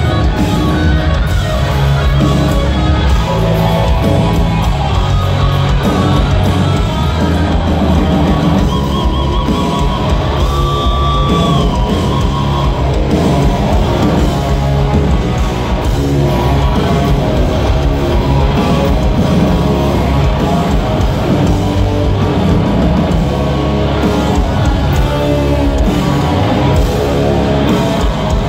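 Rock band playing live in a concert hall: distorted electric guitars, bass and drum kit, loud and dense, with a long held high note about ten seconds in.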